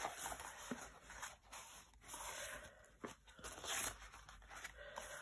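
Faint, irregular rustling and sliding of stiff acrylic-painted glossy book pages as several sheets are handled and spread out by hand.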